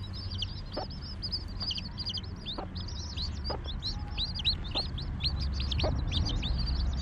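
Newly hatched Fayoumi chicks peeping in a dense, continuous chorus of short, high, downward-sliding peeps. A broody hen clucks low among them about once a second.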